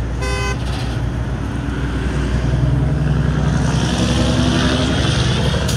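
Highway traffic passing close by: the engines of trucks and cars running, with tyre noise swelling as a vehicle goes past in the second half. A short beep sounds just after the start.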